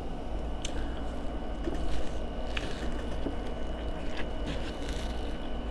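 Steady low background hum with a faint high whine, broken by a few small clicks and crunches as a sauce-soaked corn cob is handled and bitten into, the bite about four seconds in.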